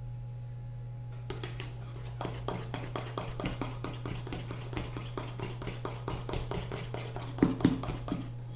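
Utensil stirring thick bolinho de chuva batter in a bowl, knocking against the side about four or five times a second, with two louder knocks near the end.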